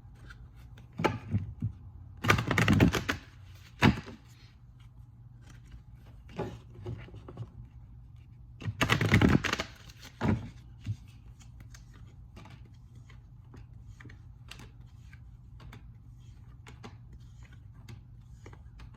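A tarot deck being shuffled by hand in short noisy bursts, then many light separate clicks and taps as the cards are handled and laid out. A steady low hum runs underneath.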